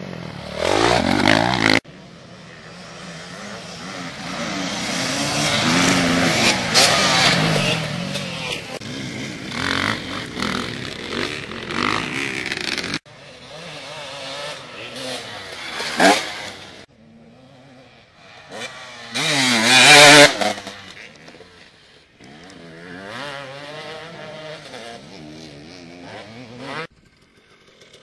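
Dirt bike engines revving up and down and passing, heard across several short clips that cut off sharply from one to the next, with a couple of brief loud high revs in the second half.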